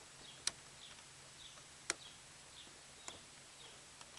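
Three sharp clicks about a second and a half apart, over faint, short, falling high chirps that repeat every half second or so, like small birds.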